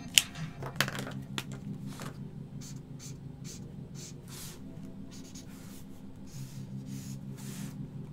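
Felt-tip alcohol marker stroking across paper: a series of short, hissing scratchy strokes as shading is blocked in, with a couple of sharp clicks in the first second.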